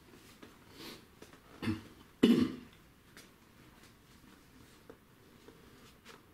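An interior door being opened by its lever handle, with a short, sharp, loud noise about two seconds in and a softer knock just before it, amid faint clicks of handling.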